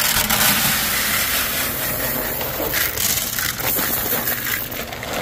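A dry granular bait ingredient poured steadily from a bag into a bucket, a continuous rushing, rattling pour.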